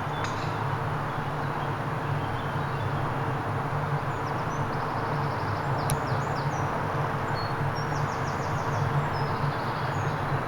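Small birds chirping, with a couple of quick trills, over a steady outdoor rumble and hiss.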